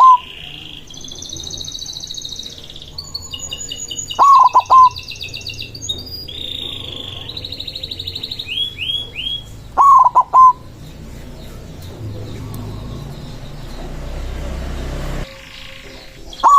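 White zebra dove (perkutut) cooing, with short, loud staccato phrases about six seconds apart. Between the phrases, small birds keep up high chirping.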